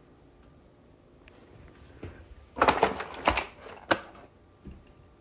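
Old door deadbolt hardware clicking and rattling: a quick cluster of sharp metallic clicks about two and a half seconds in, then two single clicks within the next second.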